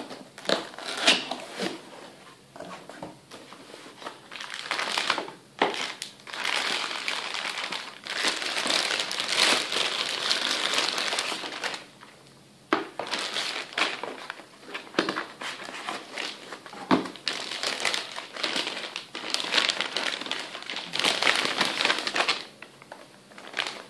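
Plastic packaging film crinkling and rustling as it is pulled and handled, along with knocks from the cardboard box and foam packing while a laptop is unpacked. The rustling comes in irregular stretches with sharp clicks, with longer runs about a third of the way in and again near the end.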